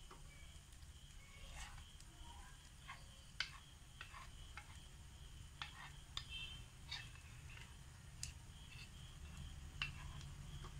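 Faint, scattered crackles and pops of hot coconut oil spitting around the edge of batter cooking in a pan, over a low steady hum.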